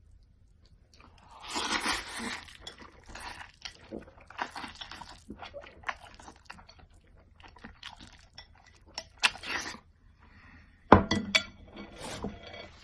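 Person eating instant pancit canton noodles and eggs fast: bursts of slurping and chewing, then a few sharp clinks of a utensil or dish about eleven seconds in.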